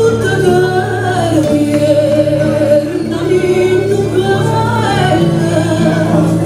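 Song with a sung melody over a steady low accompaniment.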